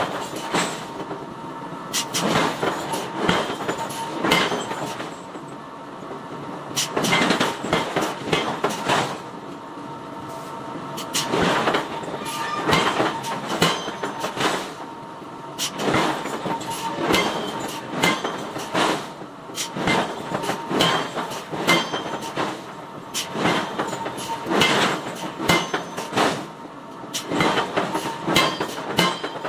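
Hammer blows on hot iron being forged into bar: runs of sharp metallic strikes, several a second, with brief pauses between the runs.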